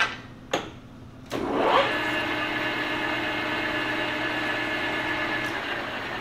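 Two sharp clicks, then a Victor 1660 engine lathe starts up about a second in, its headstock gearing rising in pitch as the spindle comes up to speed and then running at a steady whine. The lathe is running with its main spindle tapered roller bearings freshly adjusted to take up the slack that caused chatter.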